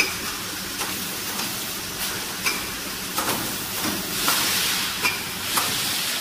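Fully automatic servo-driven screen printing machine for glass bottles running: a steady hiss with irregular sharp clicks and clacks every half second to a second, and a longer rush of hiss about four seconds in.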